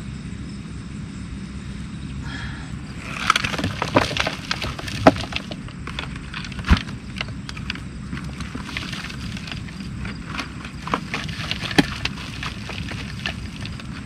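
Fill poured and shaken out of a plastic bucket into a post hole around a wooden post, with many small crackling clicks and a few sharper knocks, starting about three seconds in.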